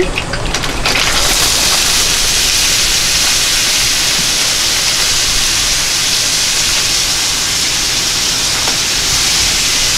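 Breakfast potatoes poured into hot oil in an induction pan, setting off a loud, steady sizzle that starts about a second in.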